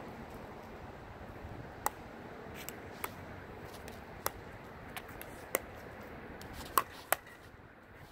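Pickleball dinking rally: sharp, hollow pocks of the plastic ball coming off paddles and bouncing on the hard court, about ten in irregular succession, the loudest near the end.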